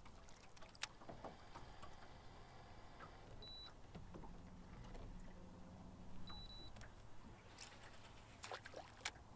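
Near silence: a faint low rumble with a few sharp clicks, one about a second in and one near the end.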